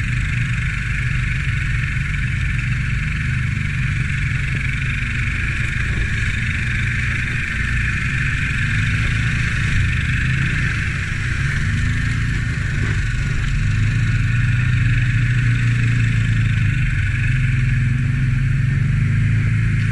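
Can-Am ATV engine running as the quad rides along, its pitch rising and falling gently with the throttle and a little louder about two-thirds of the way through, over a steady hiss.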